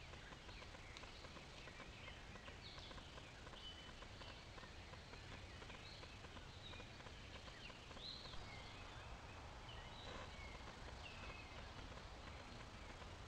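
Faint, scattered chirps and short calls of wild birds over a steady low background hiss.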